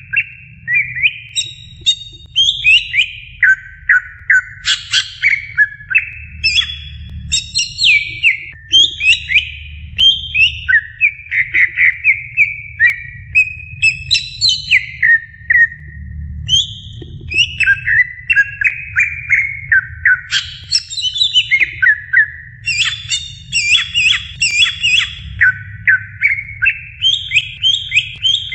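Greater green leafbird (cucak ijo) singing a long, unbroken run of rapid, varied chirps and whistled phrases, several notes a second, over a low steady hum.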